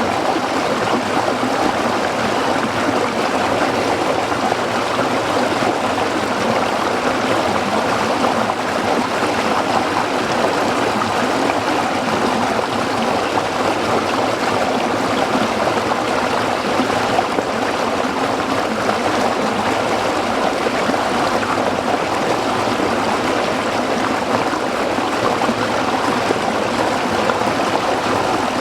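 A small stream running over rocks, a steady babbling and trickling of water with no breaks.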